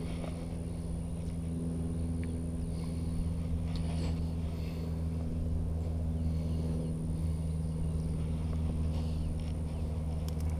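A steady low mechanical hum, like an engine or machine running, with a faint high whine above it and a few soft handling noises.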